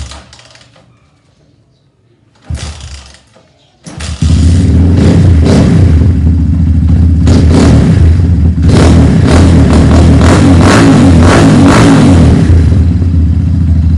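Rusi Mojo 200 motorcycle engine cranked, catching about four seconds in, then running loudly with repeated throttle blips that ease off near the end. It is starting on fresh fuel after its carburetor was drained of stale, gummed gasoline that had kept it from starting.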